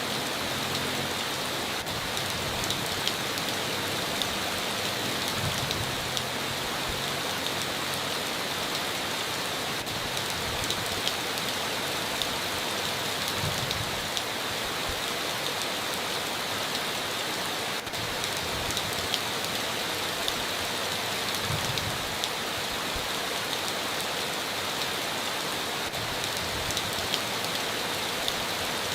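Steady heavy rain drumming on a tin roof, a dense hiss of water with many individual drops ticking through it.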